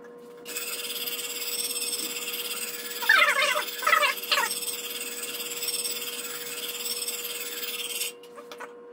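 Coarse 120-grit diamond plate on a guided knife sharpener scrubbing back and forth along a wetted cleaver edge to raise a burr: a steady gritty rasp, with a few brief squeaks about three to four and a half seconds in. The rasp stops about eight seconds in.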